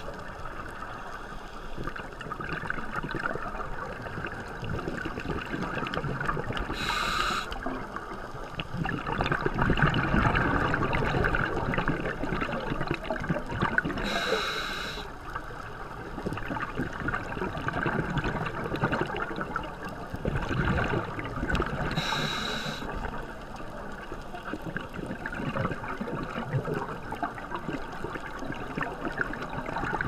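A scuba diver's regulator breathing underwater: a short hiss of inhalation three times, about seven to eight seconds apart, with bubbling exhalations in between.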